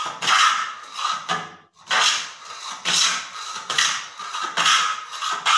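Homemade 8-inch wooden hand plane shaving a wooden block in quick repeated strokes, about one a second, each a scraping hiss. The plane is cutting well and taking off long shavings.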